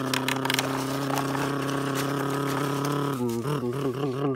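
A person's voice holding one long, low, steady note, which turns wavering about three seconds in. A few light clicks of the toy truck scraping in the dirt come in the first half-second.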